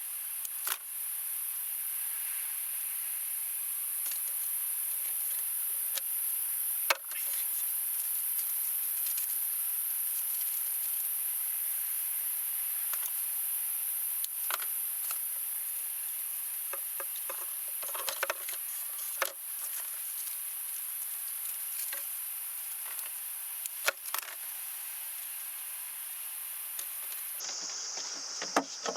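A steady high-pitched hiss, with scattered sharp clicks and taps about a dozen times over the stretch. The loudest click comes about seven seconds in, and the hiss changes pitch near the end.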